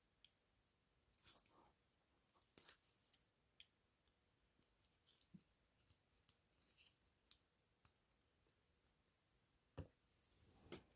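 Faint, scattered small clicks and taps of a small screwdriver working against the metal chassis and gear wheels of an HO model locomotive, as the gear train is worked open. There is a brief soft rustle near the end.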